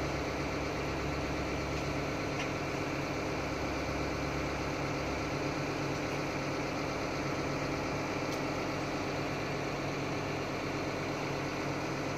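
Doosan DX140AF excavator's diesel engine idling steadily, with a deep low rumble that eases about five seconds in.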